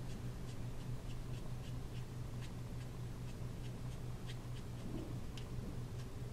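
Brush nib of an alcohol marker flicking quick short strokes on card, a run of light irregular ticks about two or three a second over a steady low hum.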